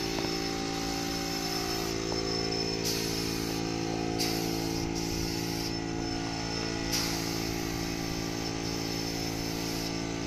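Gravity-feed spray gun hissing in several bursts as its trigger is pulled and released, spraying thinned wood stain onto a pine frame. Under it an air compressor runs with a steady hum.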